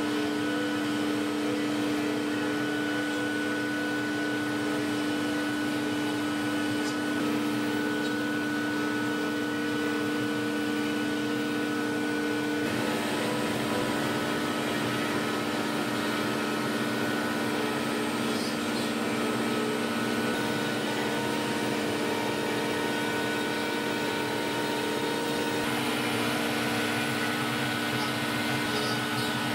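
ATS 2513 CNC router's spindle running steadily as its carving bit mills an ornamental relief into a wooden panel, a constant machine hum over cutting noise that shifts slightly about 13 seconds in.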